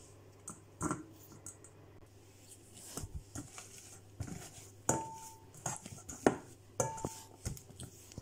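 Metal potato masher working boiled potatoes in a stainless steel bowl: irregular knocks, clanks and scrapes of metal on the bowl, twice leaving the bowl ringing briefly.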